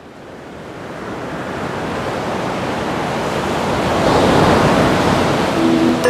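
Rushing sea-and-wind noise, like waves washing, fading in from quiet and swelling to its loudest about two-thirds of the way through. A few steady music tones come in near the end.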